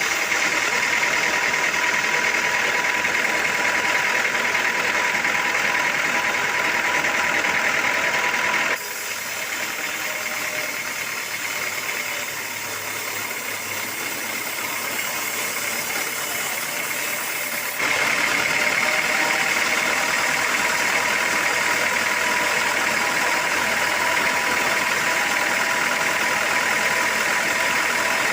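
Sawmill machinery running steadily, a motor sound with a whine. It drops abruptly in level about nine seconds in and comes back just as suddenly about nine seconds later.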